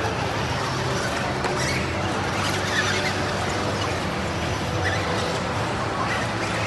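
Busy exhibition-hall ambience: a steady mix of crowd voices over a low hum.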